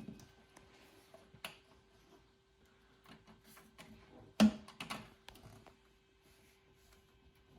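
Light scattered clicks and taps of blow-off valve parts and boost piping being handled, with one sharp knock about four and a half seconds in, over a faint steady hum.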